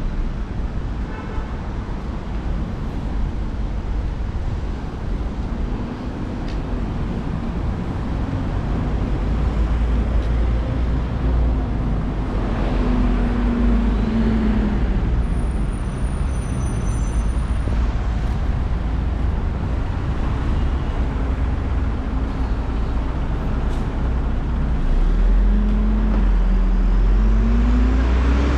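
Road traffic: vehicles driving past, with engines rising in pitch as they pull away twice, once about halfway through and again near the end.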